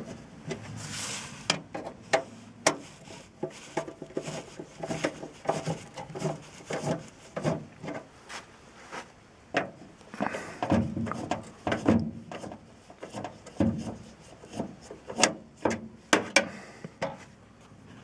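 Irregular clicks, knocks and rubbing as parts of a gas furnace are handled by hand, busier about ten seconds in and again near the end.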